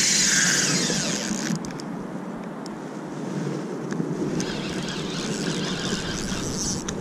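Spinning reel buzzing in two spells, strongest over the first second and a half and again near the end, as a hooked winter steelhead is played. Wind rumbles on the microphone underneath.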